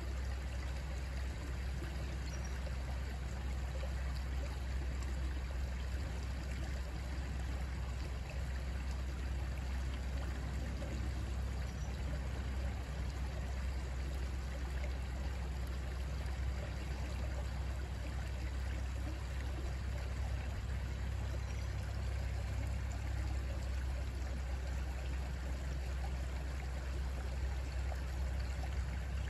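Shallow creek flowing and trickling over rocks, a steady even rush of water with a constant low rumble underneath.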